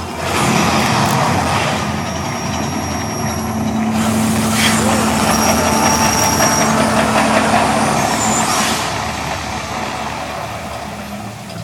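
The Mirage volcano attraction erupting: a loud rushing hiss of its fire effects starts sharply about half a second in, surges again about four seconds in and fades away over the last few seconds.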